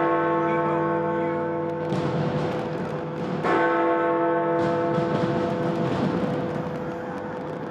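A large bell tolling: a stroke rings on from just before the start, and the bell is struck again about three and a half seconds in, each stroke humming on for several seconds. Fireworks crackle and pop faintly beneath it.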